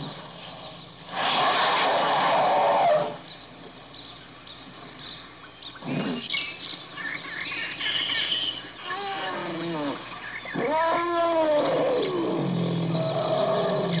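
Elephant calls: a loud, harsh blast lasting nearly two seconds about a second in, then a string of shorter calls that rise and fall in pitch, the clearest about eleven seconds in, and a low steady rumble near the end.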